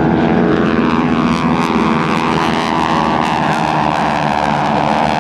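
Loud, steady propeller drone of SNJ Texan trainers' 600-horsepower radial engines at takeoff power, its pitch slowly falling.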